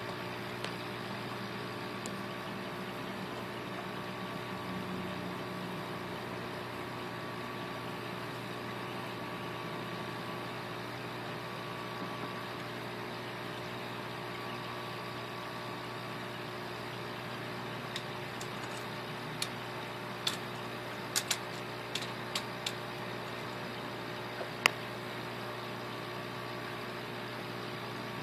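Steady mechanical hum of aquarium equipment, with a handful of sharp clicks in the second half.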